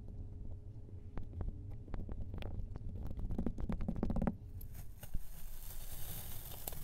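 Kinetic sand crunching and crackling as it is crumbled and pressed in a glass jar: a dense run of small crackles over a low rumble. About four seconds in it changes to a steady gritty hiss as a flat tool slides under the stamped sand layer.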